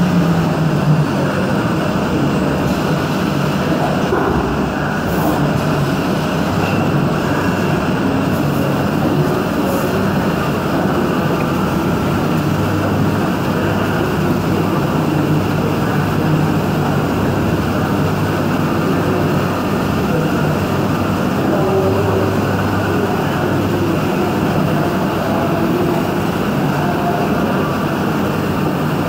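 CNC machining centre milling aluminium with a 16 mm four-flute carbide end mill at high spindle speed: a loud, steady cutting and machine noise with coolant spray inside the enclosure.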